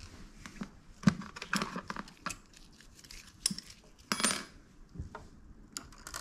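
Small metal screws and a screwdriver clicking and clinking: a string of sharp separate clicks, the loudest about a second in, and one a little after four seconds that rings briefly. The clicks come as the controller board is screwed back down in the scooter's frame.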